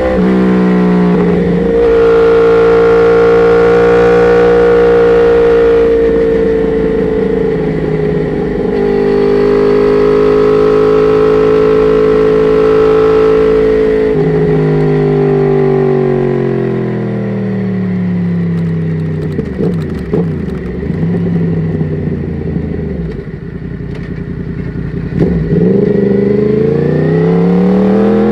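Yamaha R1's inline-four engine through an Akrapovic exhaust, ridden at steady revs with a brief dip about eight seconds in. About halfway through the revs fall away as the bike slows, with a few sharp cracks while it runs at low revs, then the revs rise again near the end as it pulls away.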